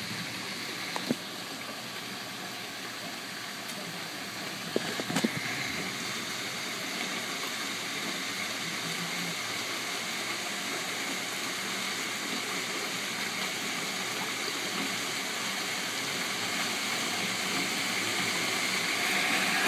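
Heavy hail and rain pelting down in a steady hiss that slowly grows louder, with a few sharp clicks of hailstones striking close by about a second in and around five seconds in.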